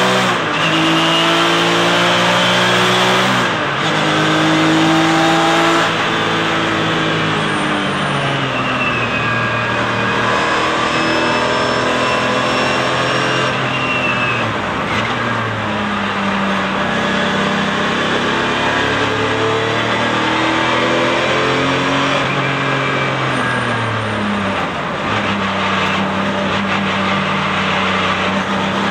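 Porsche 996 Cup car's flat-six engine at racing speed, heard from inside the car: the revs climb and drop sharply with quick upshifts, fall away around the middle as it slows, then climb hard again.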